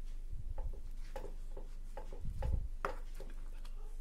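Soft scraping ticks and a few dull knocks as a serving spoon digs into cooked rice in a pot, over a low steady hum.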